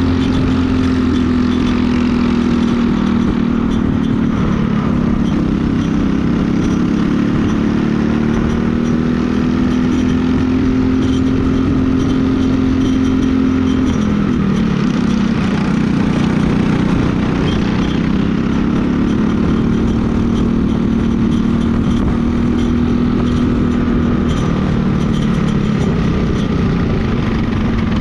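Briggs & Stratton LO206 single-cylinder four-stroke kart engine running at racing speed, heard close up. Its pitch climbs and falls over and over, with a sharp drop about halfway through.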